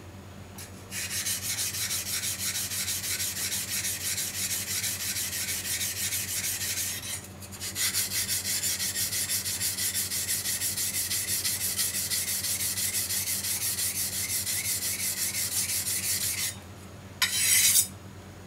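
Sashimi knife being sharpened on a wet whetstone, one side only: rapid back-and-forth scraping strokes of steel on stone. There is a short pause about seven seconds in, and a brief louder scrape near the end.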